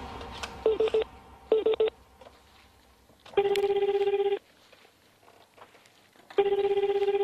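Telephone ringback tone of a call going through: two one-second pulsing rings about three seconds apart, the Japanese 400 Hz ring pattern, after two short electronic beeps near the start.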